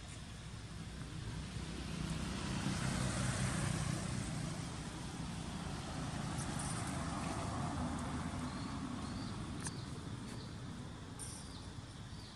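A motor vehicle's engine running close by, its low rumble swelling about two seconds in and fading toward the end, like a vehicle passing slowly.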